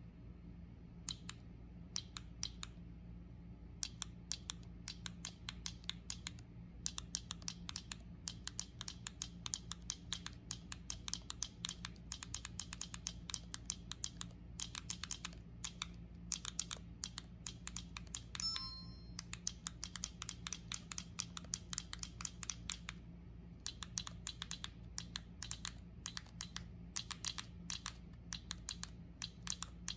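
Bandai Mugen Puchipuchi infinite bubble wrap toy being pressed over and over: sharp plastic popping clicks in quick runs of several a second with short pauses. About two-thirds of the way through, the toy plays a brief electronic sound effect, the kind it plays after every 50 presses.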